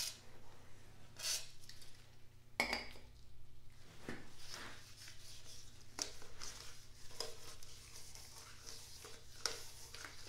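Short sprays from a WD-40 aerosol can into an engine cylinder, a knock about two and a half seconds in, then a gloved hand rubbing the oil around the cylinder wall with light scuffing and clinking sounds.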